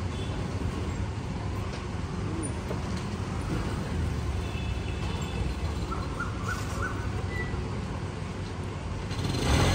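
Street background noise: a steady low rumble of traffic, with a short run of faint bird chirps about six seconds in and the noise swelling near the end.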